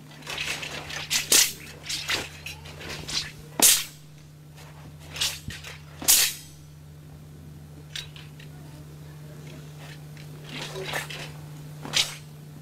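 Shaolin broadsword and loose clothing swishing and snapping through the air in a fast sabre form: a series of sharp whooshing snaps in quick clusters, the loudest about one and a half, nearly four and six seconds in, then fewer and fainter. A steady low hum runs beneath.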